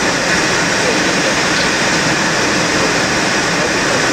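Steady rushing cockpit noise of an Ilyushin Il-86 airliner in flight: airflow over the flight deck mixed with the hum of its engines, even and unbroken.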